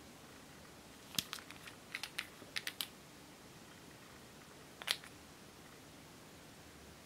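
A run of small sharp clicks as a glass nail polish bottle is opened and its cap and brush knock against the bottle, then one louder click about five seconds in.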